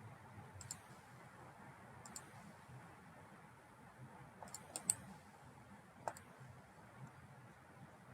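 Computer mouse clicking: a few scattered, sharp clicks, with a quick run of clicks near the middle, over faint room hum.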